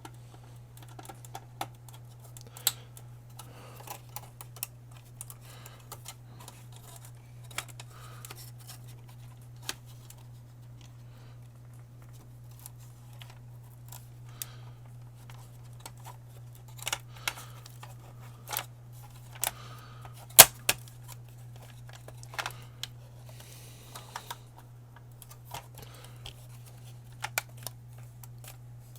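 Clicks and knocks of an Xbox One S's internal power supply and case parts being handled and fitted into the console, with a steady low hum underneath. One sharper knock comes about two-thirds of the way through.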